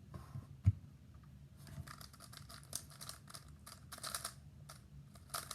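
Magnetic 3x3 speedcube being turned at speed during a timed solve: a single soft thump about half a second in, then from about a second and a half a rapid, uneven stream of plastic clicks as the layers snap through turns.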